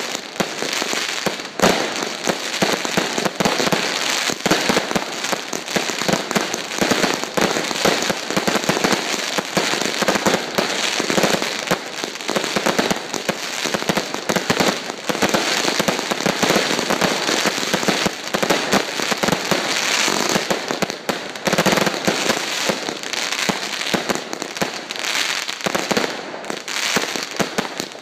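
Fireworks display: a dense, continuous barrage of bangs and crackling from many small aerial bursts and crackling stars, without a pause.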